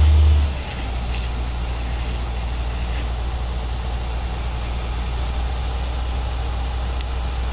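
Fire engine's diesel engine running steadily to drive the water pump, a low even drone that drops in level about half a second in, under a steady hiss.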